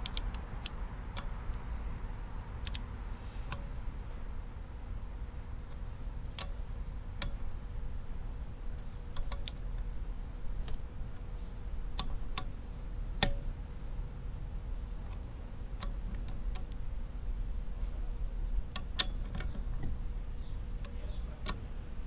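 Ratchet of a click-type torque wrench and its socket working cam cap bolts on an aluminium cylinder head: sharp metallic ticks and clinks at irregular intervals.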